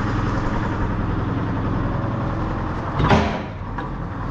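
Forklift engine running steadily at idle while it holds a heavy sprocket raised. About three seconds in there is one brief, loud burst of noise that dies away within half a second.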